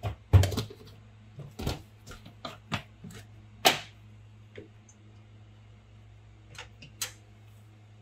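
Irregular clicks and knocks of jars, lids and a spoon being handled on a stainless steel kitchen counter during food prep, the sharpest about half a second in and near four seconds, over a steady low hum.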